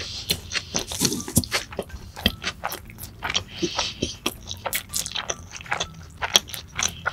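Close-miked chewing of a mouthful of McDonald's burger: quick wet mouth clicks and smacks, several a second.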